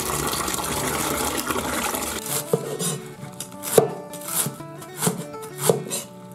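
Knife chopping food: several separate sharp strikes in the second half, over guitar background music. The first two seconds hold a denser, steady noise.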